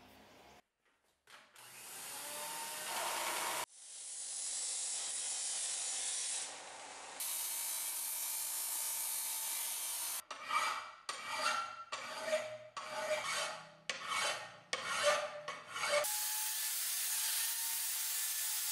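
Steel axe head being ground in a run of short cuts: a power sander grinding the metal steadily, then a series of about eight separate scraping strokes, then an angle grinder running steadily against the steel with a faint whine.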